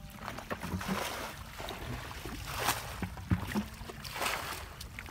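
Water splashing again and again as a bucket scoops and throws it out of a shallow muddy pool, one splash every second and a half or so, over a low rumble.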